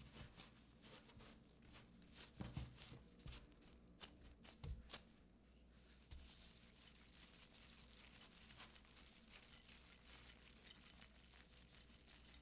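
Faint rustling with scattered soft clicks and a few low knocks, louder about two and a half and five seconds in, over a quiet steady hum.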